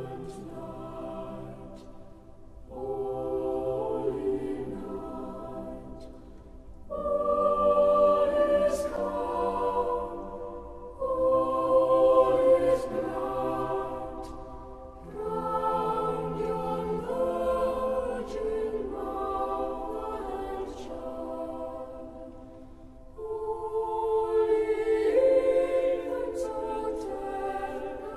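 A group of voices singing a Christmas carol, in long held phrases with short breaks between them.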